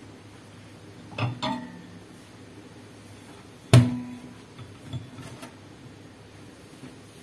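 Knocks and clinks against a stainless steel kitchen sink, each with a short metallic ring: two quick clinks about a second in, one louder knock a little under four seconds in that rings on briefly, then a few light taps.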